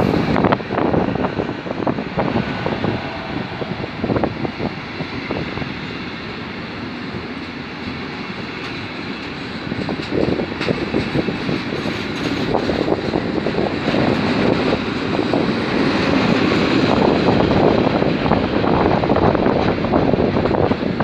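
Freight train of container and tank-container flat wagons rolling past: a continuous rumble of steel wheels on rail with rattling clatter, dipping a little in the middle and growing louder over the last half.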